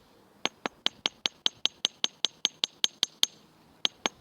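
Small hammer making very light, rapid taps on a mini anvil, about five a second, each a short ringing clink, flattening and texturing twisted triple-strand thin copper wire. The taps are kept light because the thin wire can turn brittle and snap. The tapping pauses briefly near the start and again shortly before the end.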